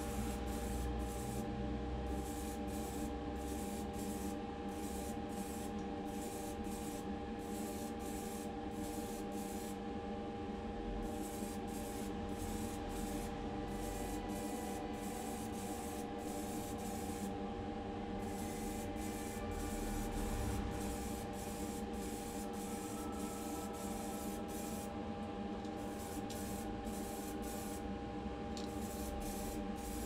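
Motip grey primer aerosol can spraying in quick, repeated short bursts, a hiss that keeps stopping and starting. A steady low hum runs underneath.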